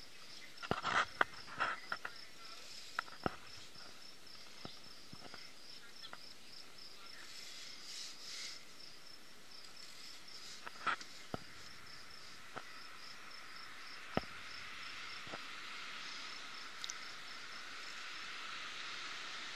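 Insect chirping in a fast, even, high pulse. Over it come scattered sharp clicks and light scratching of a pencil on paper, the loudest clicks in the first two seconds.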